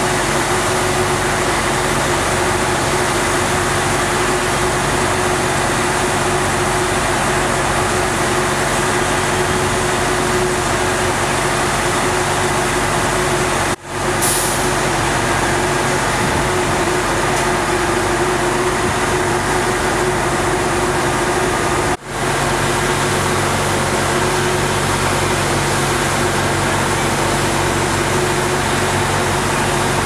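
Steady mechanical drone of a fire engine's idling diesel and a portable ventilation fan running, with a constant low hum. The sound cuts out briefly twice.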